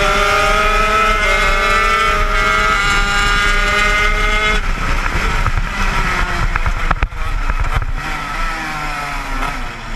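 80cc two-stroke shifter kart engine at high revs, its pitch climbing slowly, then dropping sharply about halfway through. After that the revs run lower and uneven, with a couple of sharp cracks, and near the end they waver up and down.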